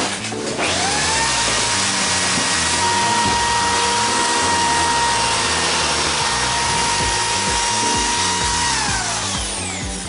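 A handheld power tool's electric motor spins up to a steady high whine, runs for about eight seconds with a hiss of work, then winds down near the end. Background music plays underneath.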